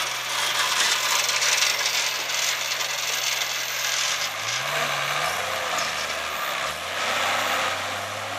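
An off-road 4x4 trials vehicle's engine revving: its pitch climbs about halfway through, drops, then climbs again. A steady loud hiss lies under it.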